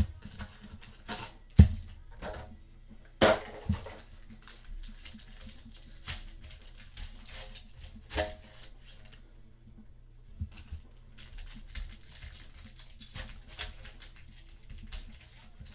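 Trading card packaging being opened and cards handled: tearing and crinkling of wrapper, with irregular clicks and taps of cards. There is a sharp thump about a second and a half in and a louder crackle a couple of seconds later.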